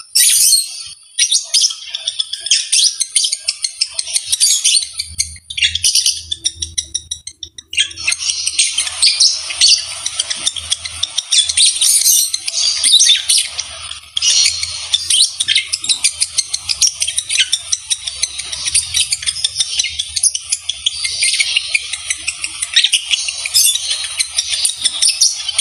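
A pair of lovebirds chattering while mating, a rapid, continuous stream of shrill chirps and squeaks that thins out briefly about six seconds in. A faint low hum runs underneath from about five seconds in.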